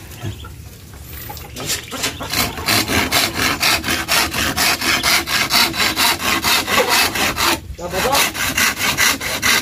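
Hand saw with a wooden handle cutting through a thin slat in quick back-and-forth strokes, about three to four a second. The sawing starts about a second and a half in, with a short pause near the end.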